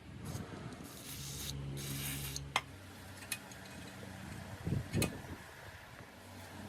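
Hand work on metal motorcycle parts: rubbing and scraping with a few sharp metal clicks, the loudest knocks about five seconds in.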